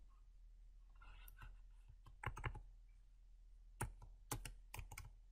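Computer keyboard keystrokes: about eight separate, faint taps, mostly in the second half, as a misspelled word is edited.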